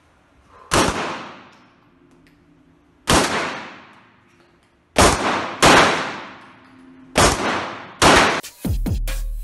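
Six handgun shots fired one at a time in an indoor shooting range, each a sharp crack followed by a reverberating tail that dies away over about a second. The shots come at uneven spacing, from under a second to over two seconds apart.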